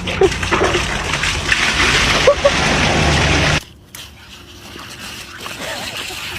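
Water splashing and sloshing, with a few short, high squeaks in it. It cuts off abruptly about three and a half seconds in, leaving faint background noise.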